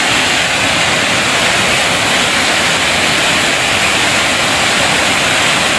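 Waterfall on a river running really full, a loud, steady rush of water with no change or break.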